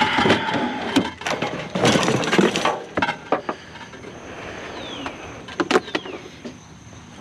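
A discarded item being worked apart by hand for scrap: bursts of scraping and rattling with several sharp knocks, loudest in the first three seconds and again briefly about two-thirds of the way through.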